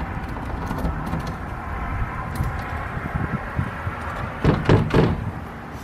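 Lock picks and tension tool working in a garage door lock: small metallic clicks and rattles, with a louder flurry of knocks and rattling of the lock about four and a half seconds in, over a steady background hum.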